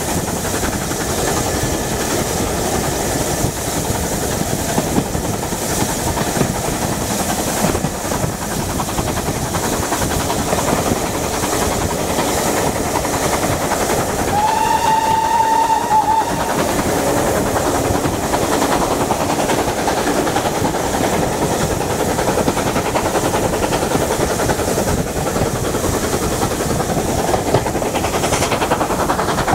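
Steady running noise of a train hauled by two BR Standard Class 9F steam locomotives, heard from an open carriage window: wheels on the rails and rushing air. About halfway through, the locomotive's steam whistle sounds once, a single steady note lasting about two seconds.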